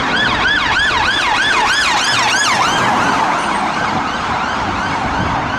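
Police siren in a fast yelp, its pitch sweeping up and down about three times a second over a steady hiss. It fades gradually over the second half.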